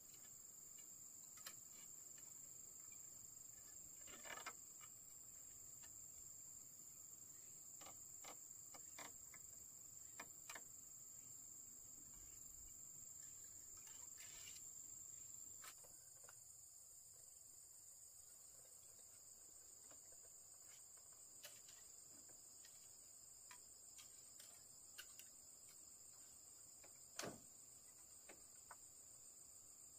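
Near silence but for a faint, steady, high-pitched insect chorus, with a few faint scattered clicks and taps.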